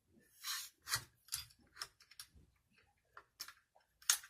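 Scattered light metallic clicks and taps as AR-15 upper-receiver parts and a headspace gauge are handled, with a brief scraping hiss about half a second in and the sharpest click near the end.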